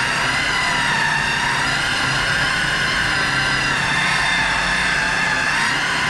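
Cordless circular saw cutting a long straight line through a plywood sheet, its motor whining steadily under load with the pitch wavering slightly as it is pushed through the wood.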